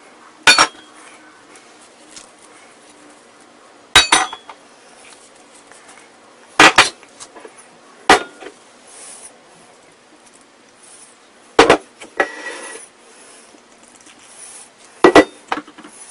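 About six sharp metallic clanks of a utensil or container knocking against a stainless steel mixing bowl as filling ingredients are tipped in, with a brief scraping rustle after one of them past the middle.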